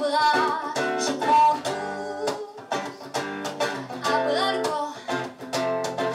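Acoustic guitar strummed in a steady rhythm while a woman sings.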